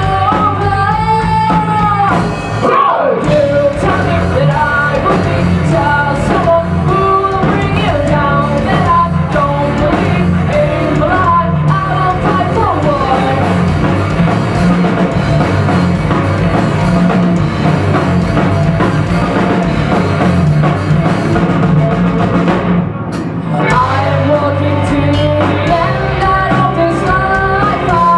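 Rock band playing live: guitar, bass and drum kit under a woman singing the vocal line, with two short breaks in the playing.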